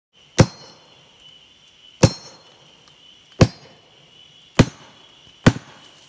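Five sharp, loud knocks struck on the buttress root of a rainforest 'telephone tree', coming slightly closer together toward the end, the first ones with a brief ringing after. Pounding on a tree's buttress like this is a jungle signal for calling people; in that code five strikes means help is needed.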